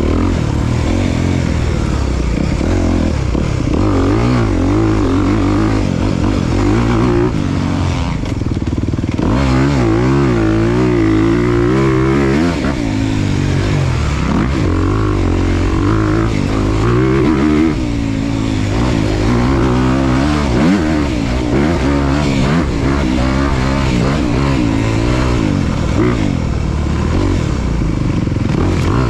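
Off-road motorcycle engine running hard, its pitch rising and falling over and over as the throttle opens and closes.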